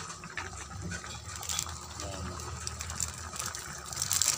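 Metal ladle stirring wet chicken pieces in a metal pan, with wet squelching and sloshing of the juices and a few scrapes of the ladle against the pan, the strongest near the end.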